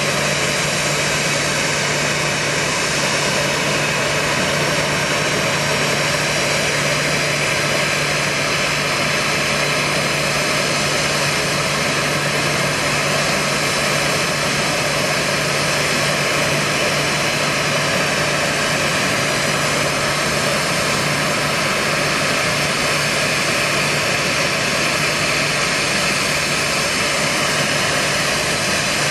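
Turbine noise from a Boeing 737-800 during engine start-up: a steady, loud rush with constant whining tones that hold unchanged throughout.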